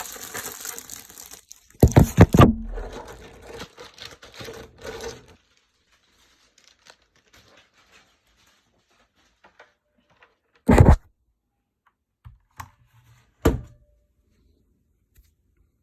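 Keyboard packaging being unwrapped: plastic and paper crinkling and tearing for about five seconds, with a heavy thud about two seconds in. Later come two separate sharp thuds, a few seconds apart.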